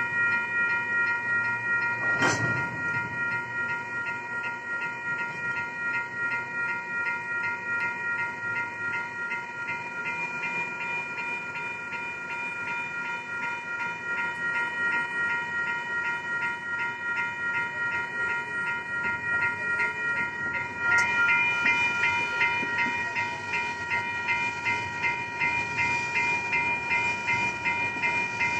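Railroad crossing warning bells ringing in a quick, steady repeating pattern, over the low rumble of freight cars rolling slowly through the crossing in reverse. One sharp knock about two seconds in. The ringing grows louder and fuller about three-quarters of the way through.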